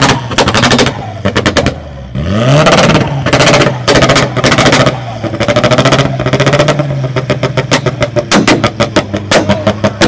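A modified car's engine and exhaust being revved in short blips over a steady idle, with loud sharp bangs from the tailpipe. A quicker rattle of pops comes in the last couple of seconds.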